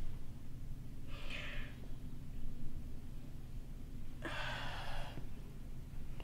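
A distressed young woman's breathing: a short breath about a second in and a longer sighing breath a little after four seconds in.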